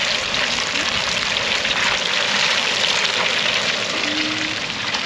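Fish fillets deep-frying in a small pot of hot oil: a steady, dense sizzle and crackle.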